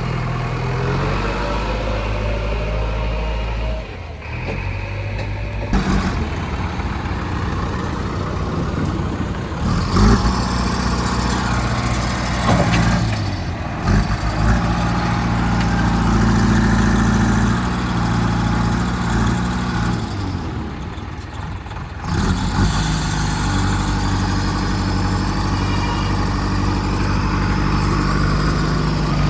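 Diesel engines of a tractor and a backhoe loader running under load, idling and revving in turn, the engine note changing abruptly several times.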